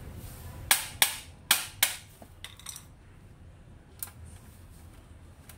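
Sharp metallic clicks and taps of a long screwdriver working on the bare metal frame of an opened HP LaserJet M26a printer: four quick clicks within about a second, then a few fainter ones and one more about four seconds in.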